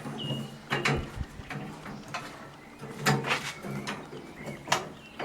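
Sharp knocks and clanks of tools on metal during the tractor rear-axle teardown. The loudest come about a second in, about three seconds in, and near the end.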